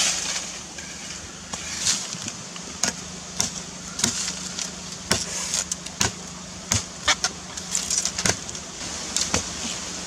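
A machete-style knife chopping into soil, roots and leaf litter at the base of a bamboo clump to dig out a bamboo shoot: a dozen or so sharp strikes at uneven intervals.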